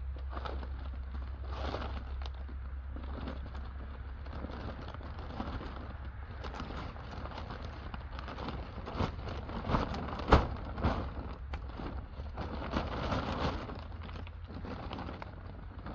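Rustling and crinkling of large woven bulk bags (big bags) being handled and unfolded, over a steady low rumble. A cluster of sharp clicks and knocks comes about nine to eleven seconds in, the loudest just after ten seconds.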